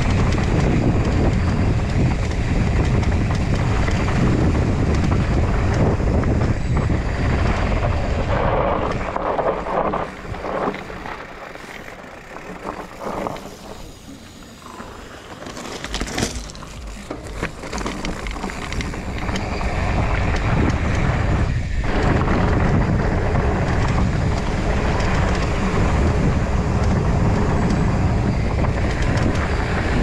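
Wind rushing over an action camera's microphone on a mountain bike descending a dirt and gravel trail, mixed with the tyres' rolling rumble and rattling knocks from the bike over rough ground. The noise drops away for several seconds in the middle, with a few sharp knocks, then builds back up.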